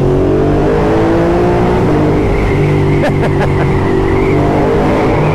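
2017 Ducati Monster 1200S's L-twin engine with slip-on exhausts accelerating hard, echoing off tunnel walls. The engine note rises, drops at an upshift about two seconds in, then climbs again.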